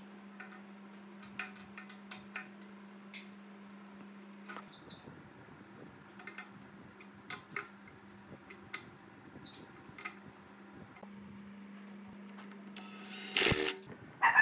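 Light clicks and taps of a spanner and gloved hands working metal fittings on an air compressor pump, over a steady low hum. Near the end comes one loud burst of noise lasting under a second.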